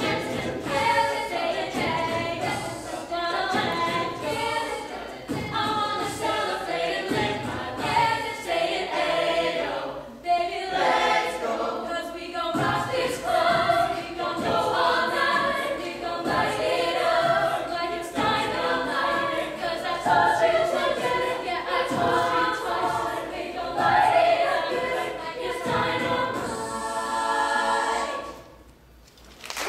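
Mixed-voice a cappella group singing a pop song, a lead singer on microphone over the others' backing vocals. Near the end they hold a final chord that fades out.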